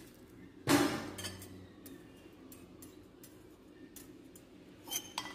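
Metal fork knocking against a ceramic bowl while juicing a lemon half: one sharp ringing clink about a second in, a lighter one just after, then faint scattered clicks and two small knocks near the end.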